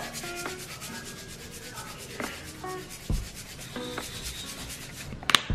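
Rapid, even rasping strokes as sesame seeds are put onto japchae, with a sharp click near the end.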